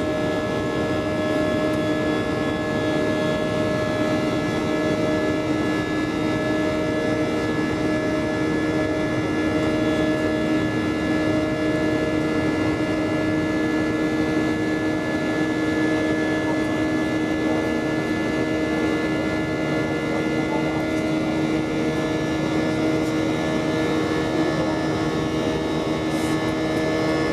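Airbus A319 cabin noise during climb-out, heard from inside the cabin: a steady jet-engine roar with several unchanging whining tones layered over it.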